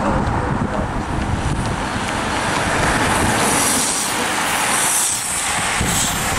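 A car driving past on the road, followed from about halfway through by a rising hiss as a bunch of racing bicycles approaches.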